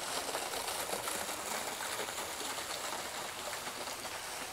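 Steady outdoor background noise: an even hiss with no single clear source standing out.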